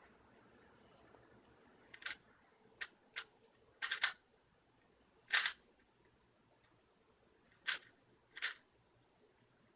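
Rubik's cube being turned by hand: a series of short plastic clicks and clacks, about seven, at irregular intervals.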